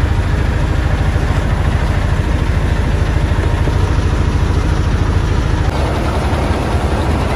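Wooden tourist boat's engine running steadily with a fast, low, even pulse. A little before the end it drops slightly in level as the boat draws up beside other boats.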